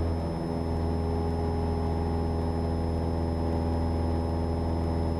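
Cessna 172's piston engine and propeller at full climb power, heard inside the cabin as a steady, unchanging drone.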